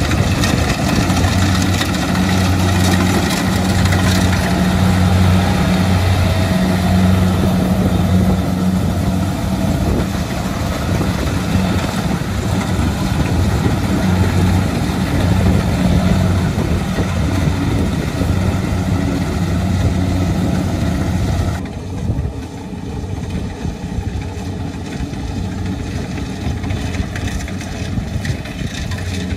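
Kubota DC-70 rice combine harvester running under load while cutting and threshing rice: a steady diesel engine note over the clatter of its harvesting machinery. About two-thirds of the way through the sound becomes quieter and duller.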